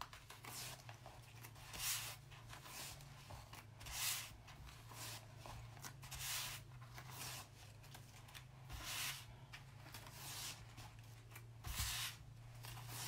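Fingertips rubbing and smoothing an adhesive mesh stencil down onto a board, giving soft swishing strokes every second or two over a low steady hum.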